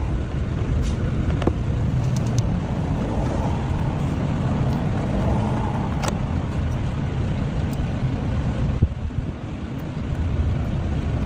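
Car engine running steadily after a no-crank fault was bypassed by starting it directly, with a brief dip in level about nine seconds in.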